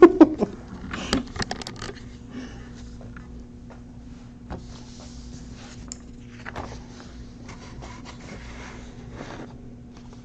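Handling noise as the recording camera is picked up and set down: a few knocks and rubbing in the first two seconds, then faint rustling of a sheet of paper being moved, over a steady low hum.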